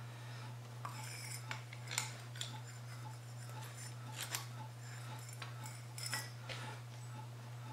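Steel parts of a mower-deck idler arm and pulley clinking and clicking against each other and the steel workbench as a bolt is worked into the arm. There are half a dozen sharp clinks, the loudest about two seconds in, over a steady low hum.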